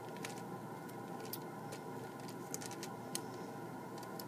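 Faint steady hiss with a few scattered small clicks from handling a crinkly plastic bag of M&M's candies.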